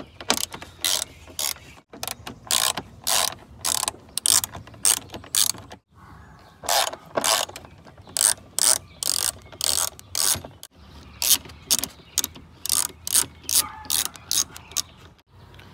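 Hand ratchet with a T30 Torx bit clicking in quick runs as bolts are loosened, with short breaks between runs.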